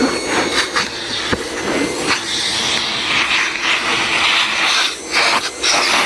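Hoover backpack vacuum running with strong suction, its hand attachment drawn over a fabric chair back. The rushing hiss changes as the nozzle moves and presses on the upholstery, growing brighter about two seconds in and dipping briefly twice near the end.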